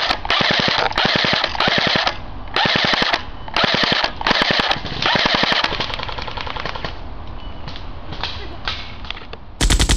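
Airsoft MP5 firing on full auto in short rapid bursts, about six bursts in the first five seconds, then quieter, sparser firing. A brief loud burst of sound comes right at the end.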